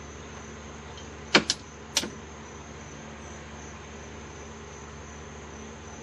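Three sharp clicks as the Ryco 2105 kit's turn-signal switch is flicked: two close together about a second and a half in, a third half a second later. A steady faint high-pitched whine runs underneath.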